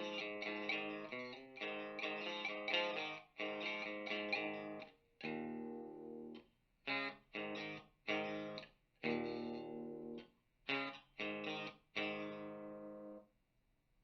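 Electric guitar played through a guitar amp and speaker cabinet: chords strummed steadily for about five seconds, then short chord stabs with silent gaps between them, and a final chord left to ring and fade near the end.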